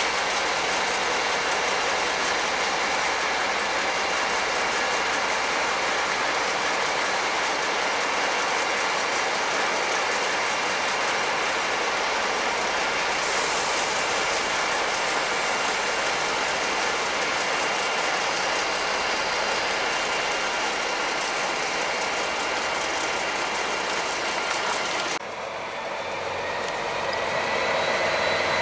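DB class 218 diesel-hydraulic locomotives running steadily at idle, a dense even engine noise with a few steady high tones. About 25 seconds in the sound changes abruptly to a class 218 pair shunting: a deeper rumble with a slowly rising whine as the engine revs up and gets louder.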